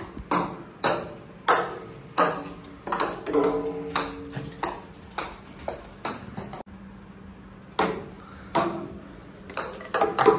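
Bright bell-like pings struck about once or twice a second, each ringing briefly and dying away, some holding a clear pitch, over a low steady hum.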